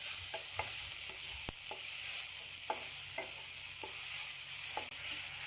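Onion-tomato masala with spice powders sizzling in hot oil in a pan while it is stirred, the utensil knocking against the pan now and then at irregular intervals, one knock about one and a half seconds in louder than the rest.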